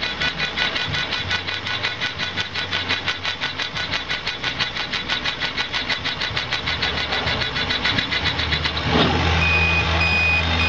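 CO2 laser engraving machine rastering over a crystal: a rapid, rhythmic whirring several times a second as the head's stepper motors reverse on each pass, over a low steady hum. About nine seconds in the pulsing stops, the hum carries on louder, and three short high beeps follow as the engraving job finishes.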